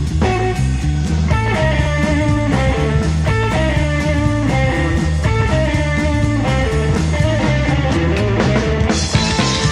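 Live rockabilly band playing an instrumental passage: electric guitar picking a lead line over a stepping upright bass line and drums, with the cymbals getting brighter near the end.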